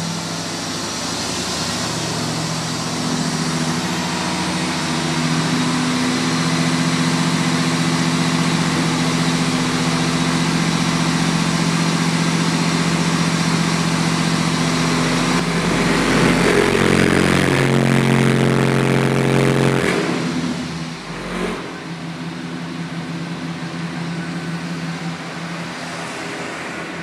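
Four Sundown SA12 12-inch subwoofers on two strapped DD M3 amplifiers playing loud held bass notes that step in pitch every few seconds, heard from outside a Dodge Ram pickup during an SPL test run metered at 131.7 dB. Near the end of the run the notes drop lower and get loudest, then cut off suddenly, leaving a lower steady hum.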